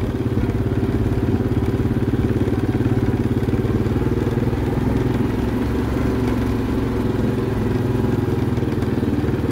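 ATV engine running steadily at a low, even speed while driving along a gravel track.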